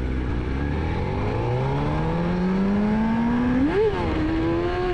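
Motorcycle engine accelerating, heard from on the bike, its pitch climbing steadily for about three and a half seconds. It then rises and drops back in a quick blip and holds at a steady higher pitch.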